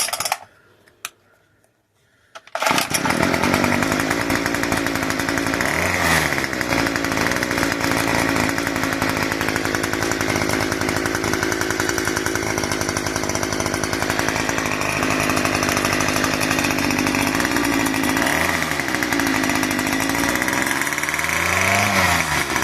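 Weed eater's small two-stroke engine, mounted on a bicycle, running loud and steady after a short near-silent gap; it comes in abruptly. Three times it revs up and falls back as the string-rigged throttle is worked.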